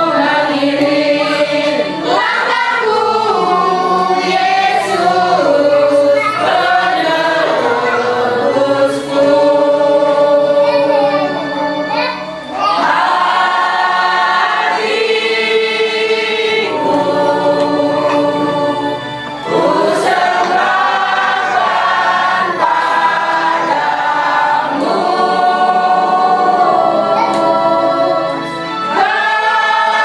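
A congregation singing a hymn together with long held notes, led by a song leader: the offertory hymn of the Mass.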